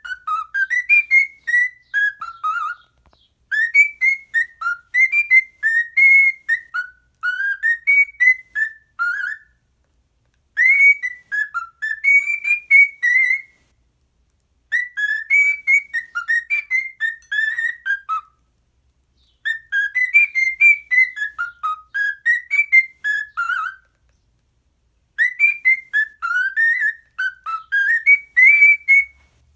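Cockatiel whistling its warbling song: quick notes gliding up and down, in six phrases of a few seconds each with short pauses between.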